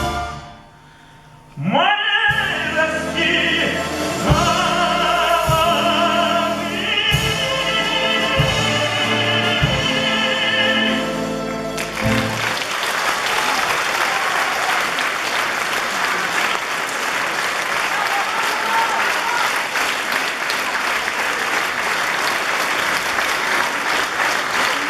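Closing bars of a song in a trained, operatic style: after a short pause, a long sung note with vibrato over accompaniment, ending about twelve seconds in. Audience applause follows and continues steadily.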